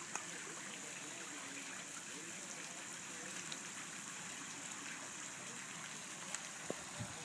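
Hot tub jets churning the water, a steady bubbling rush.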